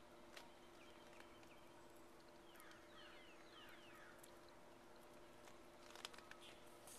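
Faint outdoor quiet with a low steady hum, broken about two and a half seconds in by a short run of quick downward-sliding bird calls, and a few soft clicks.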